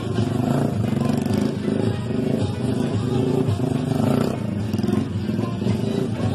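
Small motorcycle engine running under throttle as the bike is ridden on its back wheel and then on its front wheel in stunts, with music playing behind it.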